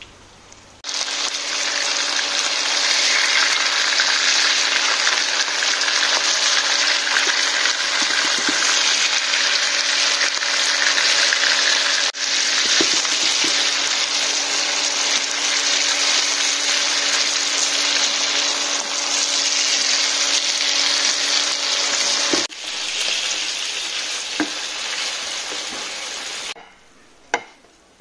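Food frying in a hot pan, a dense steady sizzle with a low hum beneath it. It stops near the end, followed by a few light clinks.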